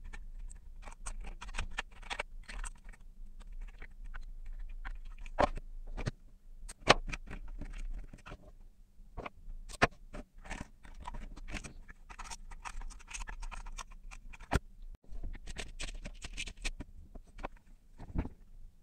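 Handling noise from a clear plastic box and small white plastic wire connectors being fitted by hand: scattered scratches, scrapes and taps of plastic, with several sharper clicks.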